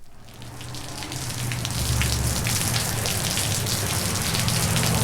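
Heavy rain pouring down in a dense hiss of drops, with a steady low rumble of traffic underneath, from a 1960s vinyl sound-effects record. It fades in over the first two seconds, then holds steady.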